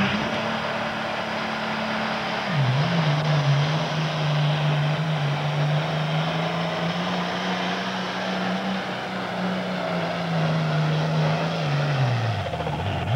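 Super farm class pulling tractor's diesel engine at full throttle pulling the sled. The pitch dips briefly about two and a half seconds in, holds steady, then falls away near the end as the engine bogs down: the driver is out-geared.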